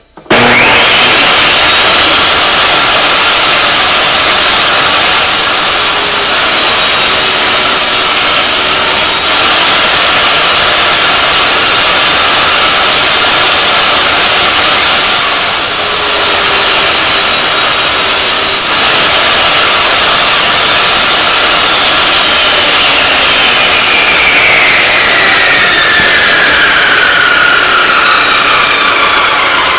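Ryobi portable table saw starting up suddenly and running loud and steady while cutting a groove along a plywood test piece, run through twice. Near the end a whine falls steadily in pitch.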